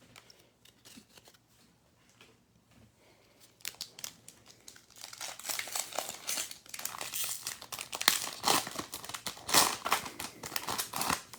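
A trading-card pack wrapper being torn open and crinkled, starting about three and a half seconds in and going on in quick, irregular rustles, with a few faint ticks before it.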